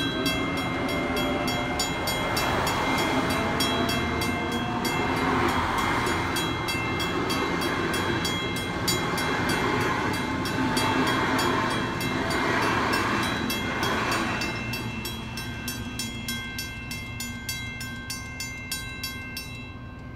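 Waratah double-deck electric train passing over a level crossing: wheel and rail rumble swells as each group of wheels goes by, with a faint rising motor whine, and fades away over the last few seconds. Level crossing bells ring quickly and steadily under it and stop shortly before the end.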